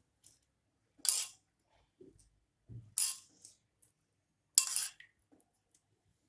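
Steel spoon scraping and clinking against a small metal pan while spooning out tempering. Three short scrapes about two seconds apart, the last the loudest, with a sharp clink at its start.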